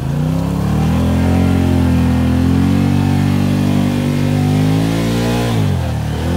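Can-Am side-by-side's engine revving up over the first second and held at high revs, then dropping off sharply near the end.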